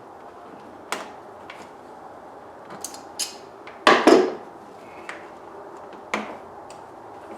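Hand tools and intake parts being handled, giving a series of separate knocks and clicks, with the loudest clatter about four seconds in.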